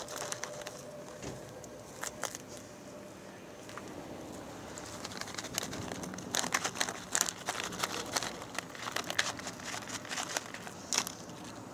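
Footsteps scuffing and crunching on gritty concrete, with a run of irregular crackling clicks through the middle.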